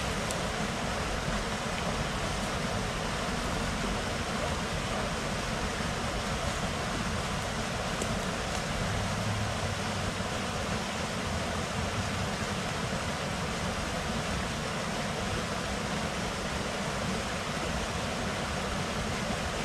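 Steady rushing of water spilling over a dam spillway and running down a shallow creek.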